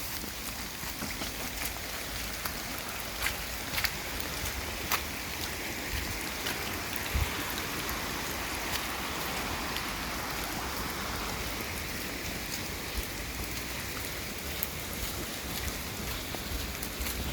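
Steady rain falling, a continuous hiss, with scattered sharp ticks of drops striking close by.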